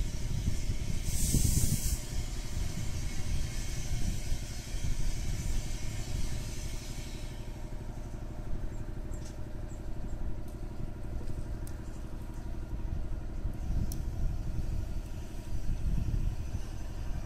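Low, uneven background rumble, with a short burst of hiss about a second in and a few faint ticks in the second half.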